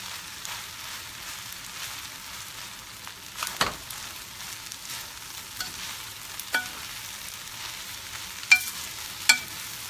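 Rice frying in a stainless steel sauté pan with a steady sizzle, while a slotted metal spoon stirs and presses it, scraping and clinking against the pan a few times; the sharpest clinks, briefly ringing, come near the end.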